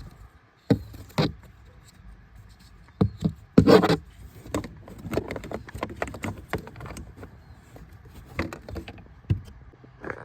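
Plastic interior trim cover being handled and pressed back into place in a car's footwell, a series of irregular knocks and clicks, the loudest about four seconds in.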